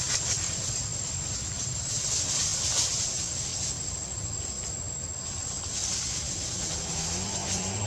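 Steady high-pitched insect drone over a low rumble. Near the end an engine starts to rise in pitch.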